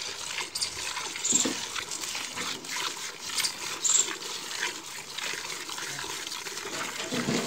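A cow being milked by hand: jets of milk squirting into a steel pail of frothy milk, a hissing spurt with each squeeze of the teats, coming in quick, uneven succession from two milkers.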